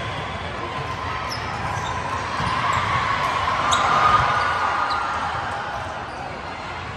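Volleyballs bouncing on a gym floor amid background chatter, with a few short high squeaks scattered through.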